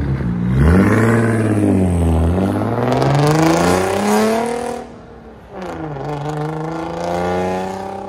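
Turbocharged V6 car's exhaust under hard throttle, the engine note rising and falling as it revs, then dropping off abruptly about five seconds in before climbing steadily again.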